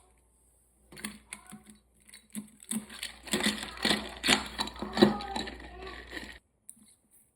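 Rapid clicking and knocking of kitchen items being handled while packing lunches, starting about a second in, busiest in the middle and stopping short near the end.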